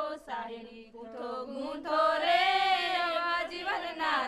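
A slow, chant-like song: a voice singing phrases with long held notes over soft music.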